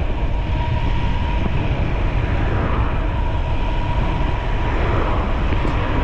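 Steady rumbling wind noise buffeting the microphone of a camera riding along on a bicycle on the road, with a faint steady high whine underneath.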